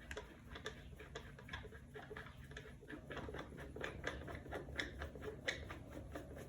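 Cat tree parts being handled and fitted together: a run of light, irregular clicks, taps and rustles, a little busier in the second half.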